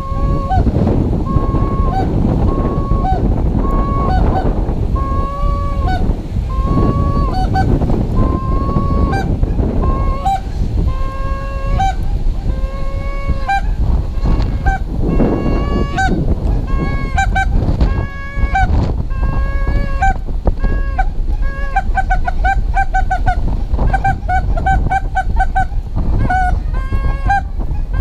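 A hand-blown mallard duck call worked steadily: a long string of loud, evenly spaced quacks, breaking into a quicker run of short notes about three-quarters of the way through, calling to circling mallards to turn them toward the decoys. Strong wind rumbles on the microphone underneath.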